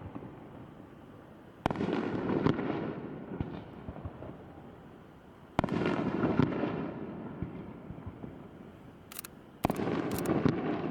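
Aerial firework shells bursting: three loud booms about four seconds apart, each followed by a rolling echo and crackle that fades over a few seconds.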